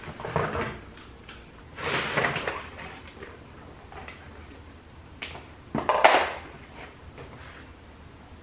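Handling noises from unpacking shopping by hand: paper and cardboard packaging rustling and knocking. There is a loud rustle about two seconds in and another, after a couple of sharp clicks, about six seconds in.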